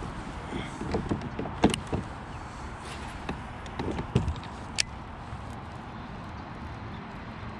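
A handful of short knocks and clunks, loudest between one and two seconds in and again around four seconds in, over a steady low background rush.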